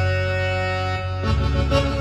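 Roland XPS-30 keyboard playing an Indian-style sound patch: a held chord over a bass note, with new notes and bass coming in just over a second in.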